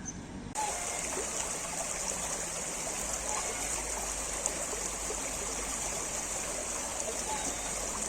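Water flowing in a stream, a steady rushing and trickling that starts suddenly about half a second in.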